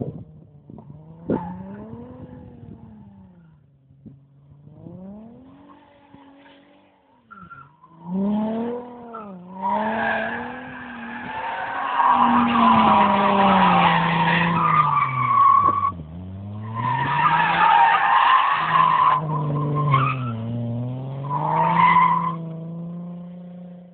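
Alfa Romeo 75 being drifted: its engine revs rise and fall again and again, and from about ten seconds in the tyres squeal in two long stretches, with a shorter one near the end.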